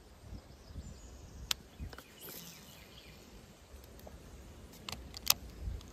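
Quiet outdoor background with a low rumble and a few short, sharp clicks, the loudest just after five seconds in.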